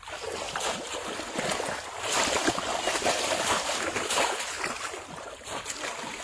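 Shallow water splashing and sloshing as people wade through it and plunge a bamboo basket fish trap down into it. The splashing grows louder about two seconds in.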